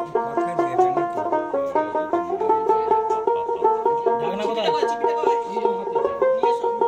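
Background music: a quick plucked-string melody with a steady beat.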